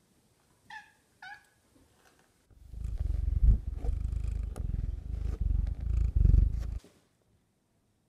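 Two short, falling peeps from baby chicks, then a domestic tabby cat purring loud and low right against the microphone for about four seconds, stopping suddenly.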